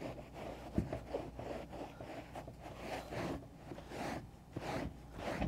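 Terry cloth towel rubbed back and forth over a car's carpeted floor mat, a rhythmic swishing scrub of about two strokes a second as it wipes up damp carpet cleaner and loosened grime. A soft thump about a second in and another near the end.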